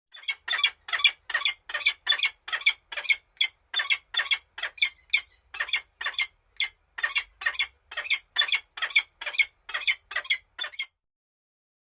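A bird giving a long series of short, harsh squawking calls, about two a second, that stops about eleven seconds in.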